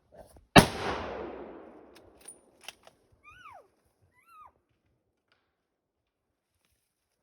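A single rifle shot, loud and sharp, whose report echoes away for over a second. A few sharp clicks follow, then two short calls that rise briefly and fall in pitch.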